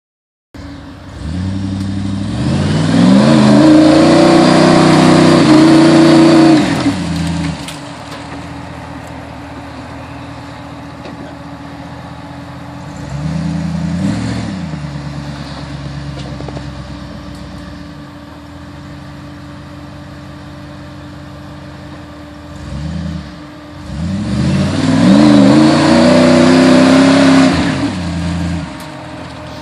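Rock bouncer buggy's engine revving hard in two long surges, one about two seconds in and one near the end, with a shorter rev in the middle and a steady lower running note between them, as it powers up a steep dirt climb.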